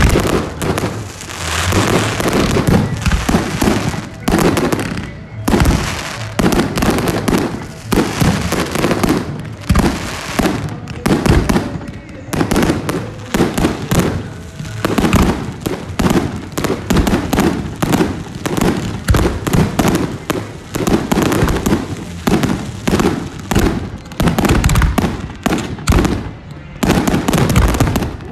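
Aerial fireworks shells bursting in a rapid, unbroken string of bangs and crackles, several a second.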